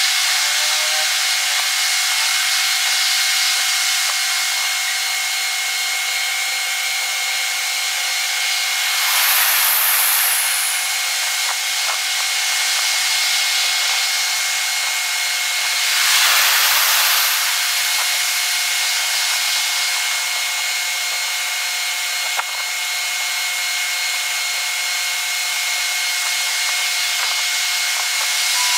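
Sped-up night street-and-railway ambience: a steady hiss with faint steady high tones, and two brief whooshes of passing vehicles, about nine and sixteen seconds in.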